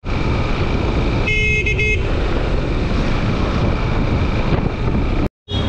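Motorcycle riding along a road, engine running under a steady rush of wind noise. About a second and a half in, a horn sounds once for a little over half a second.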